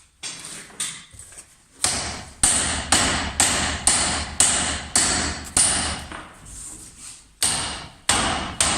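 Hammer blows on the steel steering knuckle of a car's front suspension, meant to knock the tie rod end's tapered stud loose. There are a couple of light taps, then steady hard strikes about two a second, each with a short metallic ring, with a brief pause near the end.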